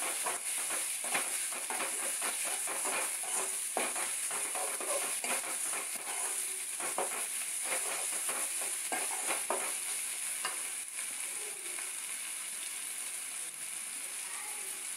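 Onions and green chillies sizzling as they fry in a metal pan, with a metal spoon scraping and knocking against the pan as they are stirred for about the first ten seconds. After that only the steady sizzle goes on.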